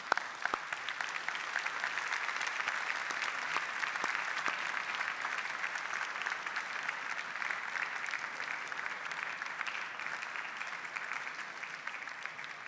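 Crowd applauding: a long round of dense clapping that starts abruptly and eases off slightly near the end.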